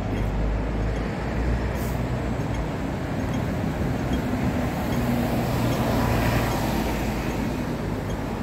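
Steady road traffic noise, with a vehicle passing and growing louder to a peak about six seconds in.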